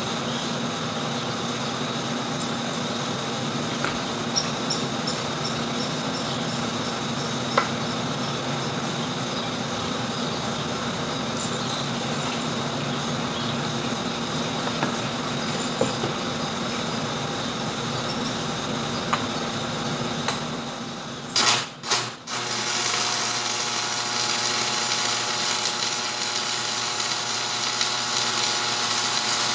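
Steady mechanical hum, then about three-quarters of the way through a stick-welding arc strikes and settles into a continuous crackling sizzle: an E6011 1/8-inch electrode laying the penetration pass on a steel wheel rim center.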